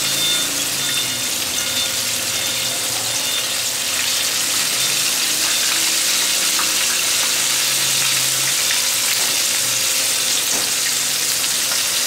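Breaded chicken pieces deep-frying in hot oil in a pan: a steady, even sizzle of bubbling oil, with the flame turned down to a slow cook.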